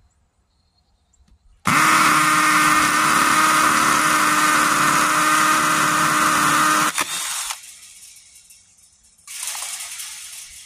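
Hammer drill with a 1/4-inch masonry bit drilling into a concrete block wall. It starts suddenly, runs loud and steady for about five seconds, then stops and winds down. A shorter, quieter burst of drilling follows near the end.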